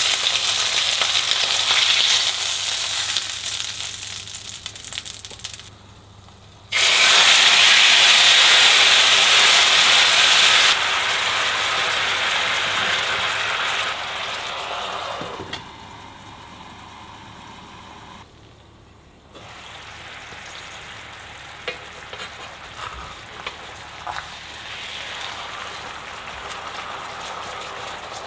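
Food frying and sizzling in a pan. The hiss steps louder and quieter at several abrupt cuts, is loudest for a few seconds about a quarter of the way in, and is softer later with a few light clicks.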